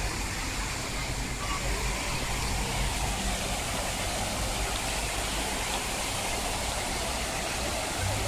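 Fountain water jets splashing steadily into their basin.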